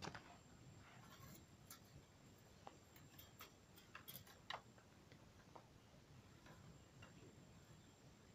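Near silence with a handful of faint, irregularly spaced clicks and ticks.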